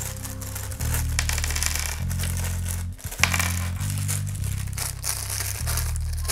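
A paper bag crinkling and rustling as it is opened and emptied of small toy parts, with a few sharper crackles, over background music with slow-changing low chords.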